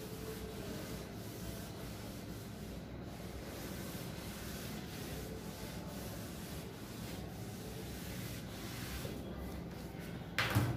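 Whiteboard eraser rubbing across a whiteboard in repeated wiping strokes, clearing off marker writing. A short thud near the end.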